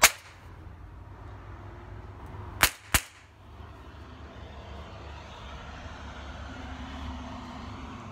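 Cheap toy cap gun firing caps: three sharp pops, the loudest at the start and two more close together about two and a half seconds later.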